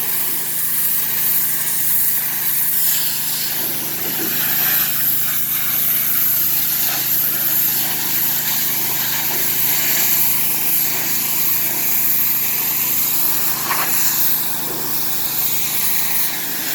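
Pressure washer's small engine running steadily, with a constant hiss of spray above it.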